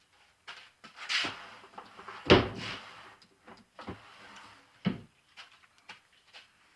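Hands handling metal parts on a lathe's cross slide: a few knocks and clicks, the loudest about two seconds in, with a short scraping rush about a second in.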